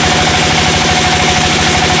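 Sawmill's engine running at a steady speed, with a steady whining tone over its rapid low firing pulses.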